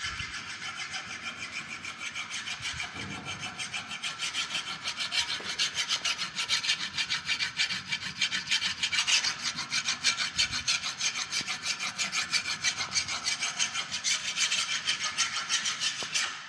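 Hand file rasping back and forth across a metal rocker arm clamped in a bench vise, finishing a corner that a grinder cannot reach. Quick, even strokes, several a second, getting louder after the first few seconds and stopping near the end.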